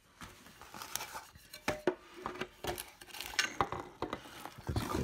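Hands handling the painted wooden parts of a Mainstays kids' porch rocker, the curved rocker runner and the frame: irregular clicks, taps and light knocks, a few with a short woody ring.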